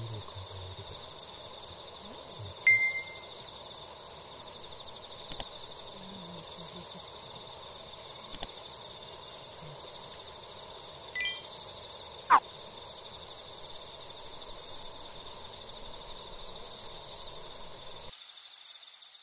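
Evening outdoor ambience with a steady insect chorus, broken by a few short chime-like tones about 3 s in and again about 11 and 12 s in, and a couple of faint clicks; the ambience cuts off near the end.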